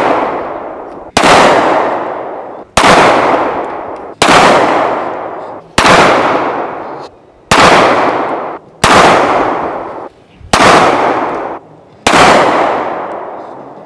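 Handgun shots fired one at a time, eight in all about a second and a half apart, each loud crack followed by a long echo that trails off.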